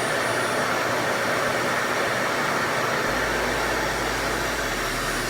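RevAir reverse-air hair dryer running steadily, its suction motor drawing air and hair into the wand: a steady rush of air with a thin high whine over it.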